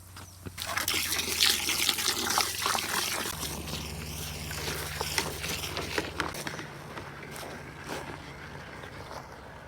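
Water pouring and splashing into a bucket of shampoo, strongest over the first few seconds and then tapering off.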